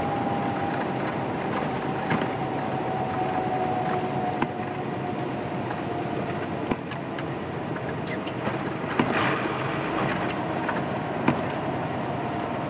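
Steady in-cab road noise of a semi truck driving on wet pavement: engine drone and tyre hiss. A faint whine eases slightly down in pitch over the first few seconds, and light clicks and knocks come now and then, the most noticeable about nine and eleven seconds in.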